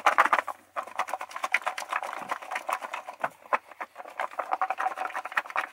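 Salad being tossed by shaking it in a covered metal scout bowl: a rapid, continuous rattle and patter of chickpeas and chopped vegetables against the bowl's sides and lid, with a brief pause about half a second in.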